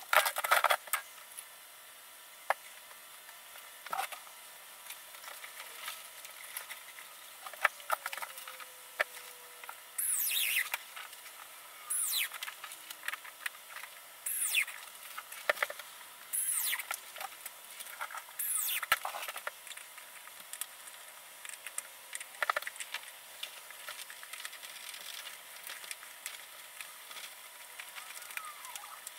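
Interior window frame being handled and fitted into the existing window opening: scattered knocks and clicks, with about five short high-pitched falling sweeps around two seconds apart in the middle.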